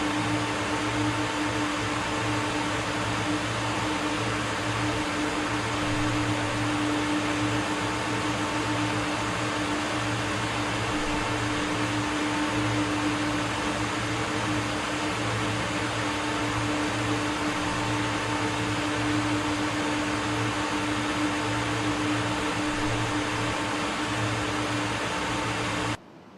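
Steady hum and hiss of running machinery, with a few constant tones under a wash of noise; it cuts off suddenly near the end.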